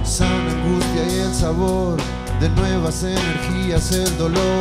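A rock band playing live, a man singing a melody over guitar-led backing.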